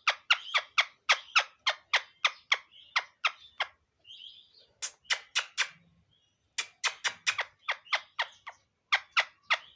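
Pet parrot squawking in rapid trains of short, sharp, high calls, about six a second, in four runs with brief pauses between them.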